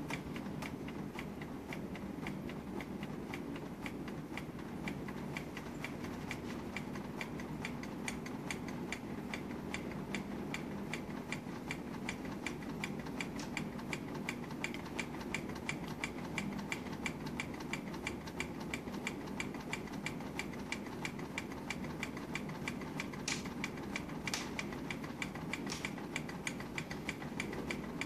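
Homemade soda-can gamma Stirling engine, heated by a light bulb, running steadily: its moving parts tick evenly, several ticks a second, with a few louder clicks late on.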